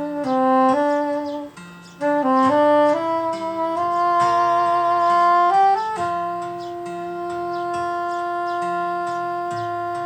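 Saxophone playing a slow, calm melody: a phrase of short stepping notes, then about six seconds in a single long held note, over a quieter lower accompanying line.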